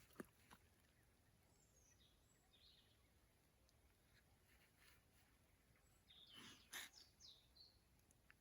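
Near silence in the forest with a few faint, scattered bird chirps, short quick high notes. A brief soft noise comes about six seconds in, followed by a few more chirps.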